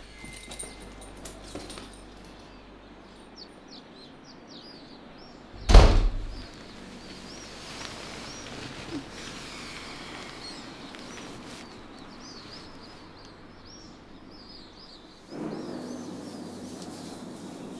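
A door shuts with a single heavy thud about six seconds in, the loudest sound here. Small birds chirp faintly through much of the rest, and near the end a louder steady room hiss comes in.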